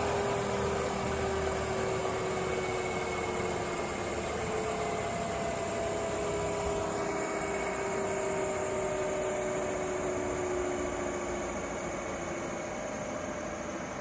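All-electric Mosquito ultralight helicopter prototype running: steady electric-motor whine over rotor noise. The whine drifts slowly down in pitch, and the sound eases off a little.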